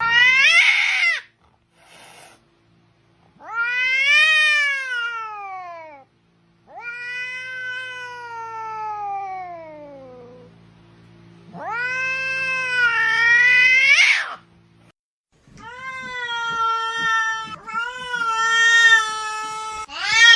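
A domestic cat yowling in about five long, drawn-out meows, each rising and then falling in pitch over two to four seconds. One call near the end wavers up and down several times.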